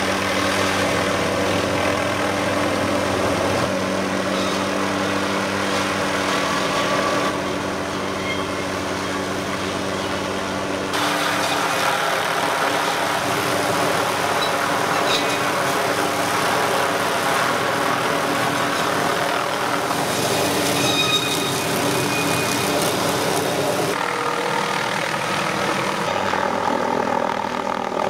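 MD 500 helicopter hovering with its suspended tree saw running, giving a steady mix of engine, rotor and saw noise. The tone and balance change abruptly several times.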